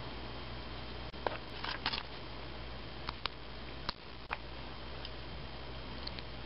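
Small clicks and taps of fingers handling a tiny snapped-off nail tip and metal model-wheel parts. They are scattered: a few about a second or two in, and a few more around three to four and a half seconds in, over a steady low hum.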